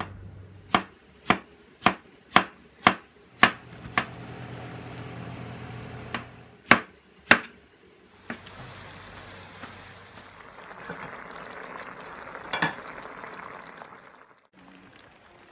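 Cleaver chopping on a wooden cutting board: a run of sharp knocks about two a second, then a few more strokes. From about eight seconds in, food sizzling in a pan, with one louder clack partway through.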